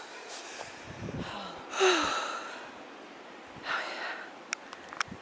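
A hiker breathing hard after a long uphill climb: a loud breathy exhale with a short falling voiced note about two seconds in, and another breath near four seconds. A few light clicks come near the end.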